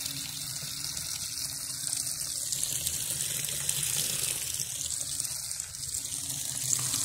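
Steady rush of water running from a tap, with a faint low hum underneath.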